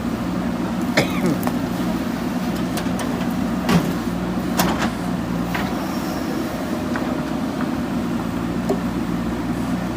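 Diesel engine of a JCB backhoe loader running steadily while it works, with a few sharp knocks scattered through, the loudest about four seconds in.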